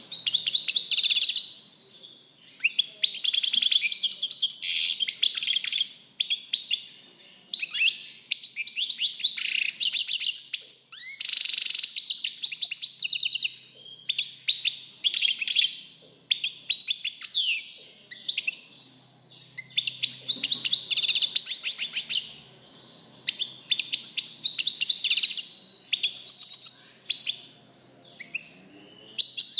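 European goldfinch singing: a run of rapid, high twittering phrases, each one to a few seconds long, with short pauses between them.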